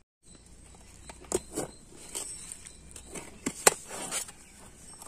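Kitchen knife cutting through a green bell pepper on a stainless steel plate: a series of short crisp crunches and clicks as the blade goes through the skin and taps the plate, the sharpest about three and a half seconds in.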